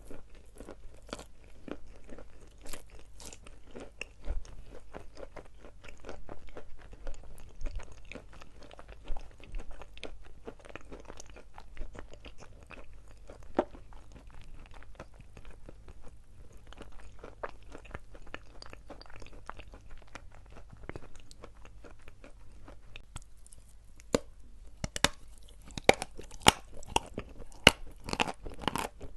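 Person biting and chewing dry chalk: irregular crisp crunches throughout, coming faster and sharper over the last five seconds.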